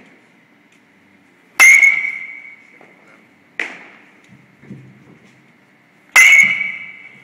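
A metal bat hitting pitched balls three times, each hit a sharp crack with a ringing ping that fades over about a second. The first hit, about one and a half seconds in, and the last, about six seconds in, are the loudest; the middle one, about three and a half seconds in, is weaker and rings only briefly.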